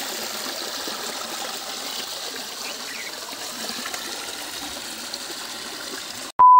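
Water running steadily over a small waterfall, an even rushing hiss. Near the end it cuts off abruptly and a loud, steady high-pitched beep begins.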